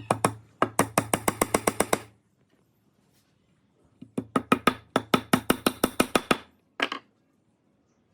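Power tool running in two bursts of about two seconds each, with a steady low hum and a rapid even clicking of about eight clicks a second, then a short final burst near the end.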